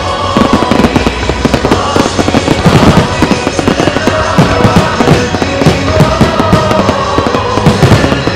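A rapid barrage of aerial firework shells bursting, many bangs overlapping in quick succession, with music playing along underneath.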